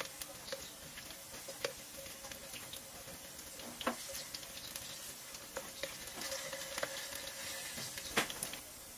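Potato chunks sizzling as they fry in shallow oil in a nonstick wok, with the taps and scrapes of a wooden spatula stirring and turning them; a sharper knock near the end.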